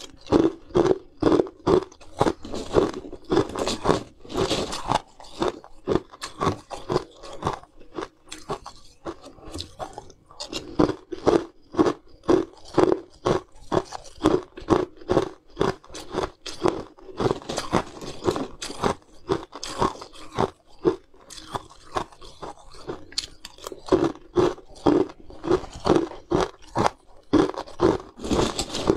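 Coloured ice cubes being crunched and chewed close to the microphone: sharp crunches come two or three a second in runs, with brief lulls between mouthfuls.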